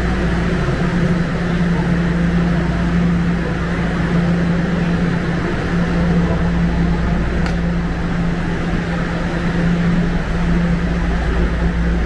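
Steady low mechanical hum with a rumble beneath it, the drone of subway station machinery, unchanged as the platform is left behind. A single sharp tick about seven and a half seconds in.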